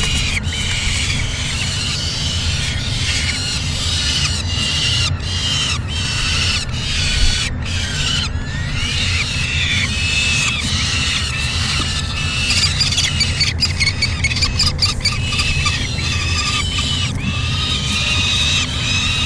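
Peregrine falcons calling during a prey feeding in the nest box: many short, high, repeated calls, coming in quick runs near the end, typical of a young falcon begging for food. A steady low rumble lies underneath.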